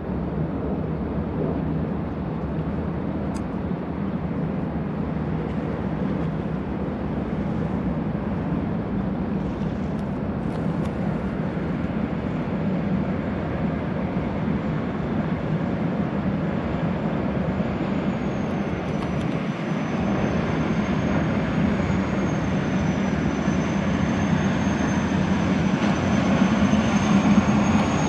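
Boeing Jetfoil 929-100's gas turbines running as the foilborne hydrofoil passes at speed: a steady rush and drone, with a thin high whine that comes in about halfway, dips slightly and rises again. It grows louder as the craft nears.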